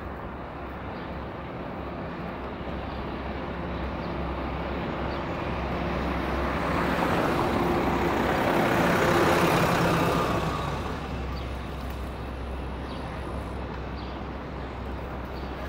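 A motor vehicle approaching and passing close by, its engine and tyre noise swelling to a peak about nine seconds in and then fading, over a steady low hum of city traffic.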